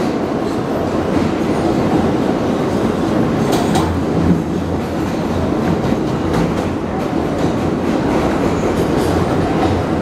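NYC R160 subway car running at speed through a tunnel, heard from inside: a loud, steady rumble of wheels on rail, with a few sharp clicks about three and a half seconds in.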